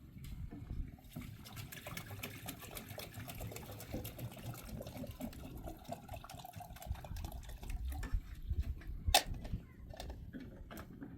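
Liquid being poured or splashed, with scattered small clicks and one sharp knock about nine seconds in.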